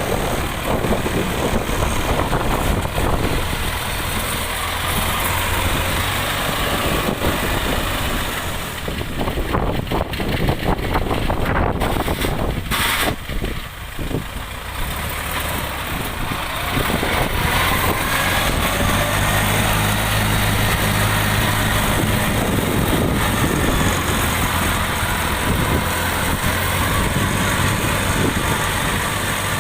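Diesel engine of a DC70 rice combine harvester running steadily under load, with a low steady hum that grows stronger past the middle.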